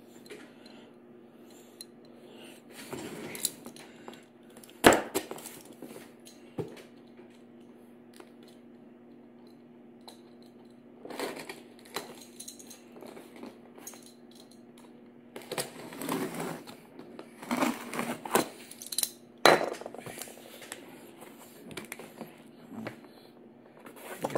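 Cardboard laptop box being handled and opened on a hard wooden tabletop: scattered scrapes, rustles and taps, with a sharp knock about five seconds in and another near the end. A faint steady hum runs underneath.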